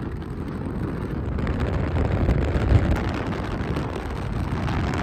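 A vehicle driving, with steady road and wind noise and a low rumble.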